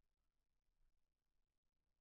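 Near silence: only a very faint low hum, with no distinct sound.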